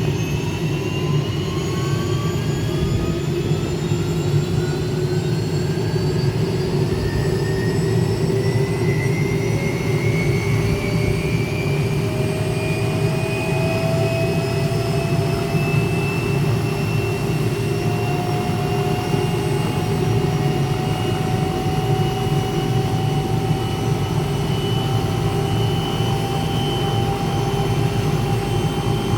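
Helicopter turbine engine and rotor running steadily, with a turbine whine that rises slowly in pitch the whole time.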